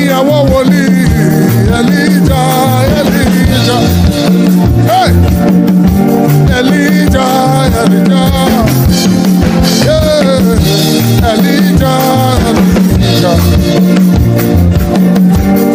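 Live gospel worship music: a band plays a steady, danceable beat with drums and bass while a voice sings over it, loud throughout.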